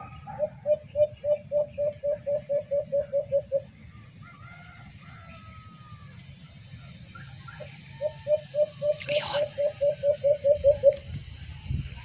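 A Bluetooth speaker plays a recorded alimukon call as a lure: a quick run of low, evenly spaced hoots, about four a second, for about three seconds, then after a pause a second identical run. Faint bird chirps are heard in the gap.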